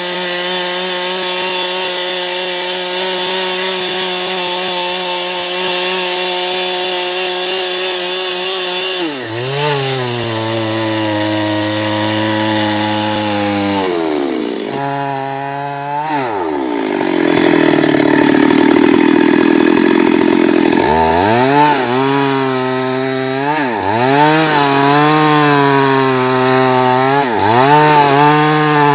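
Chainsaw engine running at high speed, steady at first. From about nine seconds in, its pitch repeatedly sags and climbs back, typical of the chain bogging down in a cut and recovering. A rough rasping noise stands out around the middle.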